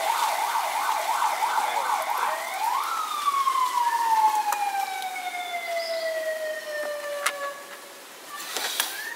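Electronic siren: a fast warble for about two and a half seconds, then one rise followed by a long, slowly falling wail, with a short rise again near the end.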